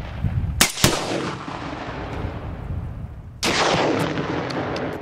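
Two rifle shots about a quarter second apart, fired from a SCAR 16 in 5.56, a little over half a second in. About three and a half seconds in, a Tannerite exploding target goes off with a sudden loud boom that rumbles on, followed by a few faint sharp cracks.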